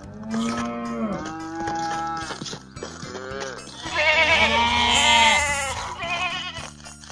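A cow mooing twice, then a flock of sheep bleating, several voices overlapping with a wavering quaver. The bleating is the loudest part.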